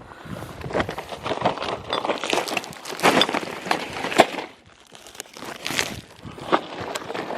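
Roadside litter, plastic and paper, crinkling and crunching as it is handled, in a run of rapid crackles that eases off about four and a half seconds in and comes back briefly near the end.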